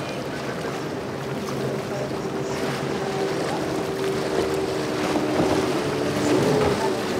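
Single Yamaha 150 outboard on a 2002 Seaswirl Striper running at speed, a steady drone under the rush of spray and wind as the hull punches through the waves.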